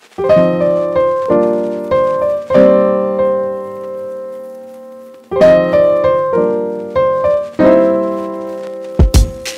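Background piano music: chords struck one after another, each ringing and fading, with one long chord dying away in the middle. Near the end a drum beat comes in.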